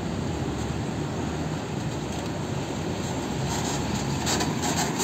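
Mercedes-Benz Axor dump truck's diesel engine running as it drives up, a steady low rumble. It grows louder and a rapid fluttering hiss joins in from about three and a half seconds in, as the truck draws close.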